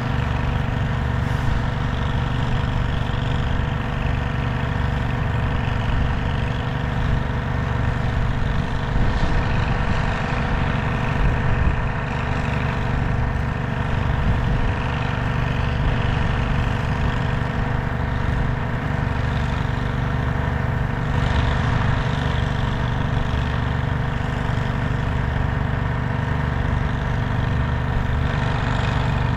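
An engine idling steadily, a constant low drone with several steady tones.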